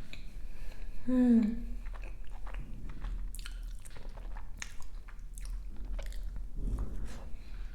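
Close-miked eating: a person chewing and biting food, with many short, crisp crackles. About a second in there is a short hummed 'mm' that falls in pitch.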